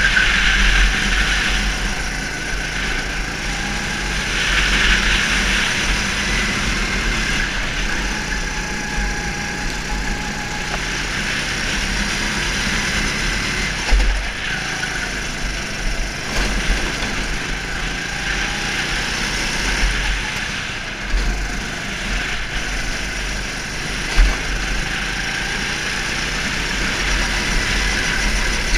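Go-kart engine running steadily on track, its pitch rising and falling with the throttle, under heavy wind rumble on the microphone, with a few short knocks.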